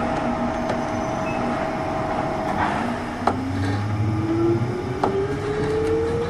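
JR 201 series electric train heard from inside a motor car: a steady hum gives way, about two and a half seconds in, to a whine that rises steadily in pitch as the chopper-controlled traction motors pull the train up to speed. A couple of sharp knocks sound over the running noise.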